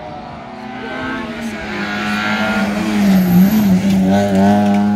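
Rally car engine running hard as the car approaches at speed and passes close by, growing louder to a peak about three and a half seconds in, its engine note dipping and rising briefly around then.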